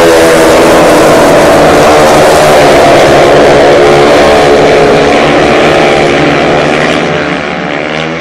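Speedway motorcycles racing, their single-cylinder methanol engines running flat out, very loud, with their pitch rising and falling as the riders go through the bend. The sound fades from about seven seconds in as the pack pulls away down the far straight.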